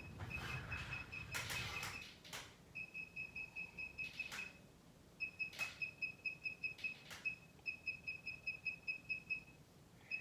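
An electronic beeper sounding rapid, short high beeps, about five a second, in runs of one to two seconds with brief gaps. A few light clicks and knocks from handling the equipment come over it.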